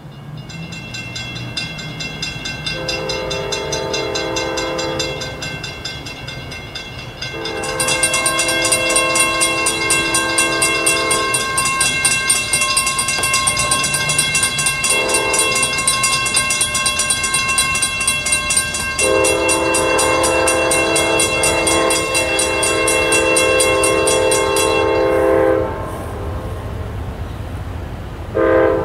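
Amtrak Auto Train locomotive horn sounding for a grade crossing in the standard pattern: long, long, short, long. It sounds over grade-crossing warning bells that ring steadily and grow louder about 7 seconds in, then stop about 25 seconds in. A new horn blast begins near the end.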